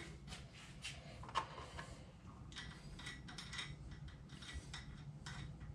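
Faint clicks and light metallic rattles of a washer and nut being fitted by hand onto the upper stud of a shock absorber, with one sharper click about a second and a half in.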